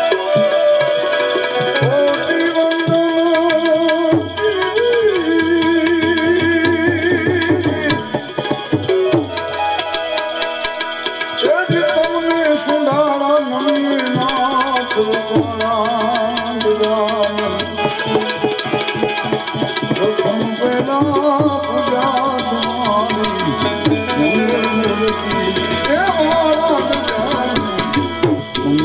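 A Gujarati devotional bhajan played live: a male voice singing over harmonium, with pairs of small brass hand cymbals (manjira) struck in a steady rhythm.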